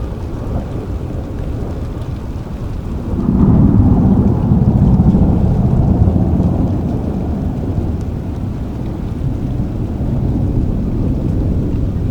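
Rain falling steadily with a roll of thunder that swells about three seconds in, rumbles loudly for a few seconds and slowly dies away.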